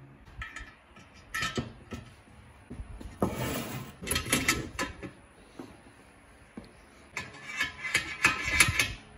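A 3/16-inch steel rod clinking and scraping against a steel Pit Boss sear plate as its bent end is worked through the hole in the plate's tab. The clatter comes in three bouts with short metallic rings.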